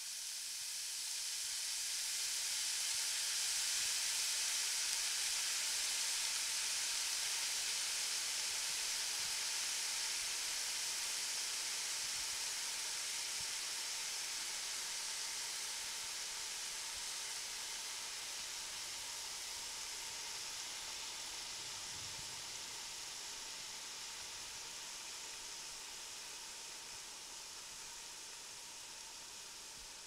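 Thick beef steaks sizzling on a hot grill grate: a steady, high hiss of searing meat that slowly fades.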